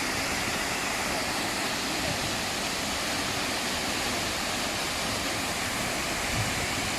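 Shiraito Falls, a wide curved cliff with hundreds of small streams of water falling from it, making a steady, unbroken rush of falling water.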